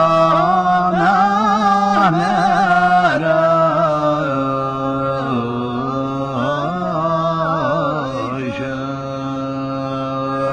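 A man's voice singing a traditional Yemeni chant, holding long notes that waver and turn in ornamented runs, with the pitch sliding down as a phrase ends.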